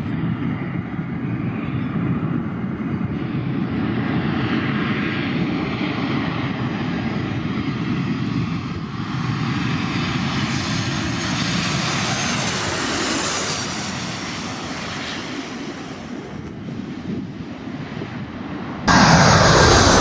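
Boeing 737-800's CFM56-7B turbofans on final approach: a steady jet rumble with a high fan whine that builds and then drops in pitch as the airliner passes. About a second before the end, it cuts abruptly to a much louder rush, with wind on the microphone.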